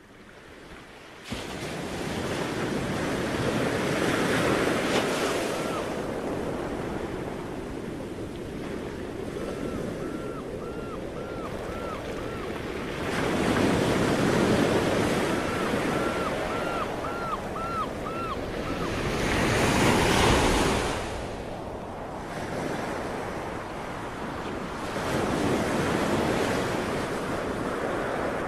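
Sea waves washing onto a shore, swelling and falling back about every six seconds. Three short runs of quick little chirps sound over the surf.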